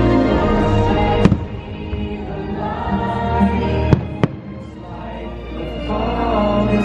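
Orchestral show music with a choir, broken by sharp firework bangs: one about a second in, and two close together around four seconds in.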